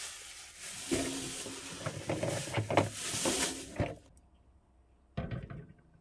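Plastic grocery bags crinkling and rustling, with several knocks as items are set down into a chest refrigerator, stopping about four seconds in; one more short rustle a little after five seconds.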